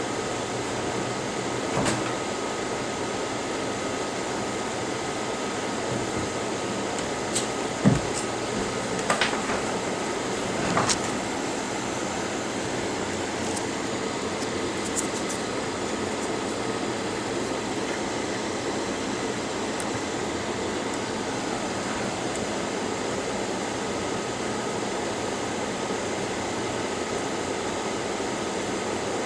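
Steady fan-like background noise with no speech, broken by a handful of light clicks and taps in the first eleven seconds as the logic board is handled in the helping-hands alligator clips. The loudest tap comes about eight seconds in.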